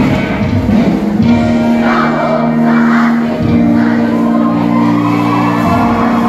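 Loud music with a large group of voices singing along in unison, long held notes throughout, from a school cheering squad's routine.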